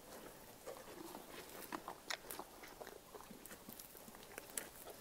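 A horse moving close by: faint, scattered crunches and clicks, a cluster of them about two seconds in and one sharper click near the end.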